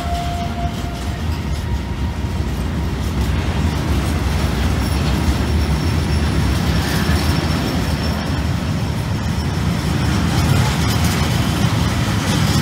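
Covered grain hopper wagons of a freight train rolling past close by, a steady rumble of steel wheels on rail that swells slightly, with a few sharp rail clicks. A faint high wheel squeal comes in around the middle.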